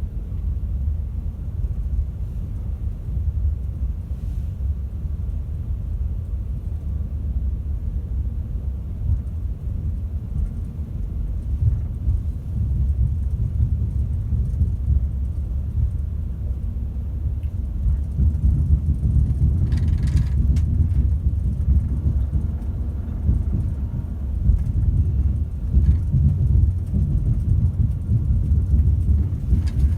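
Class 390 Pendolino electric train running, heard from inside the carriage: a steady low rumble of the motor bogie and wheels beneath the floor. It grows louder a little past halfway through, with a couple of faint clicks about two-thirds in.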